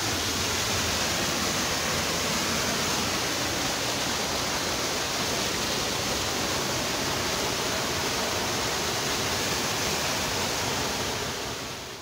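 Waterfall pouring down over rocks close by: a steady rush of falling water, fading away near the end.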